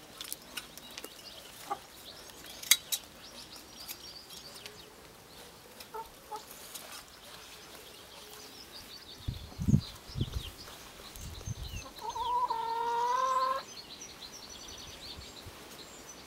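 Small birds chirping and singing, a few sharp clicks, and some dull low thumps around ten seconds in. About twelve seconds in comes one drawn-out, slightly wavering animal call lasting over a second, the loudest sound here.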